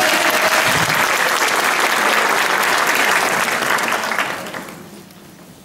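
Audience applauding, a steady clapping that dies away about four to five seconds in.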